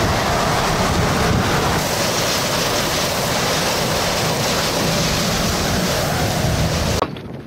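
Strong storm wind blasting across the microphone, a loud steady rush that cuts off abruptly near the end.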